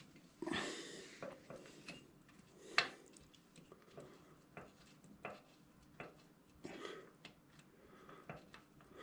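Hand tools and metal suspension-linkage parts clinking, knocking and scraping while being handled, with one louder click just under three seconds in.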